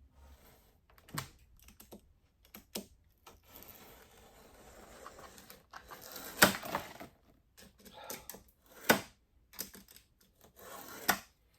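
Plastic window film being handled and cut: irregular sharp clicks and taps with crinkling, and a longer scraping stretch in the middle. The loudest clicks come about six and a half and nine seconds in.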